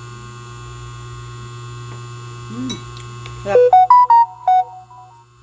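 Steady electrical mains hum, then about three and a half seconds in a quick run of about six short electronic notes stepping up and down, lasting about a second and louder than anything else.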